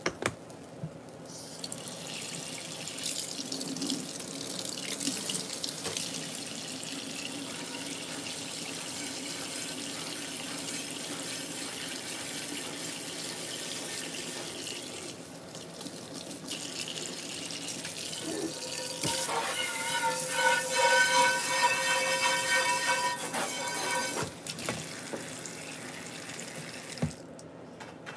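Water running from a kitchen tap, with a steady whining tone rising out of the flow for a few seconds in the latter part.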